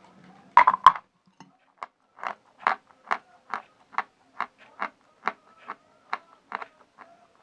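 A person biting and chewing dry natural chalk close to the microphone. A few loud, sharp crunches come about a second in, then steady chewing crunches about two a second as the chalk breaks down into a gritty paste.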